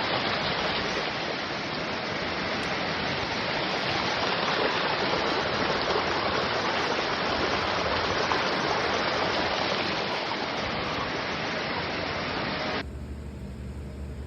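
Steady, loud rush of floodwater or storm water, an even noise with no distinct events. It cuts off suddenly about 13 seconds in, giving way to a quieter, steady low hum.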